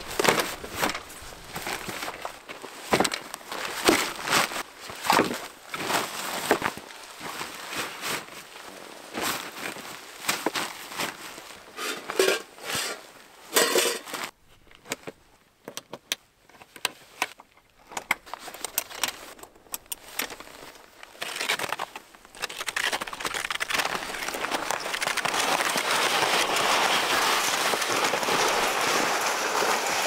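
Gear being packed into a plastic pulk sled: nylon bags rustling and crinkling, with many sharp clicks and knocks of plastic and hooks as a cargo net is stretched over the load. In the last several seconds a steady rushing noise takes over.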